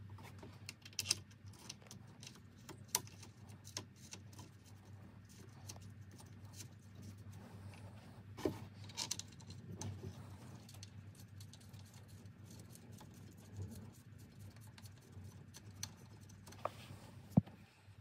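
Quiet, scattered metallic clicks and clinks of bolts and hand tools being handled during engine-mount work, with a few sharper knocks, the loudest near the end, over a low steady hum.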